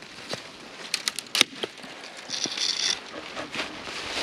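Dry dead pine twigs snapping as they are broken off a pine tree for kindling: a string of sharp cracks, bunched about a second in, then a brief rustle of branches.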